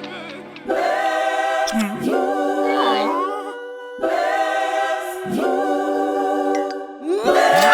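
Choir singing a cappella in long held notes, in phrases separated by short breaks.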